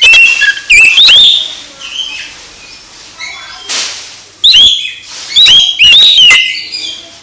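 Oriental magpie-robin (kacer) singing loud, varied whistled phrases of sharply up- and down-slurred notes, in bursts near the start and again past the middle.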